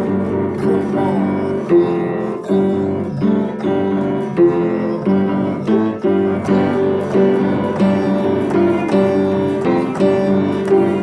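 Instrumental music with a keyboard sound: repeated struck chords at a steady pulse, about three every two seconds.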